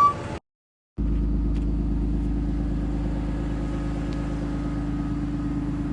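A vehicle engine running steadily with a deep low rumble. It comes in about a second in, after a brief moment of dead silence.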